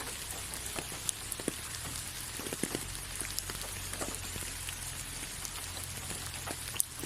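Steady rain falling, an even hiss scattered with many separate drop clicks, over a faint low hum.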